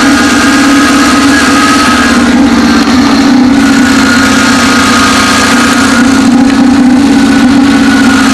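1972 Toyota Corolla's four-cylinder engine idling steadily in the first minutes after a cold start at −15 °C, running evenly.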